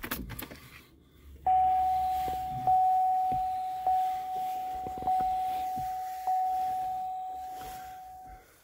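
Dashboard warning chime of a 2002 Buick LeSabre: one steady mid-pitched note struck five times about a second apart, each strike fading slowly, coming with a prompt to tighten the gas cap. A few light handling clicks come before it.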